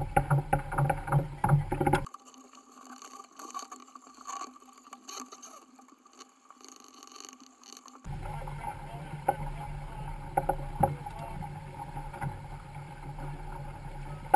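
Wind buffeting the microphone and water rushing along the hull of a sailboat under way, with a few knocks. From about two seconds in to about eight seconds the sound turns thin and quieter, with the low rumble gone, then the full wind and water noise returns.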